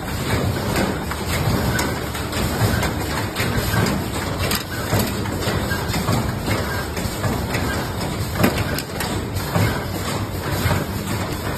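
Automatic high-frequency PVC welding machine running: a steady low mechanical hum with scattered, irregular clicks and knocks.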